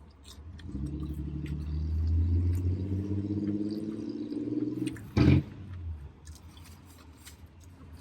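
A motor vehicle's engine running and rising in revs nearby for about five seconds, a low hum that swells and then fades, with a short loud knock-like sound about five seconds in.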